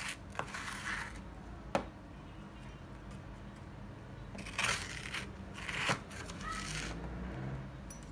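Plastic ice cream scoop scraping and shaving frozen milk in a plastic container, in a few short gritty strokes, with one sharp click about two seconds in.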